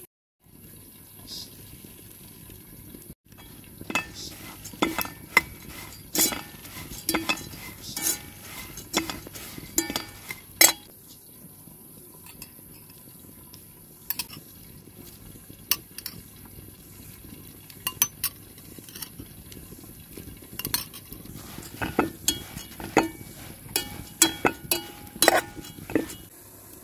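Metal slotted spoon stirring dried barberries in a black metal pot, scraping and clinking against the pot in sharp, irregular strikes that start about four seconds in.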